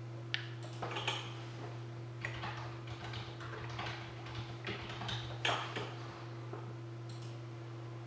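A run of small clicks and light clattering from off-camera handling, stopping about six seconds in, over a steady low electrical hum.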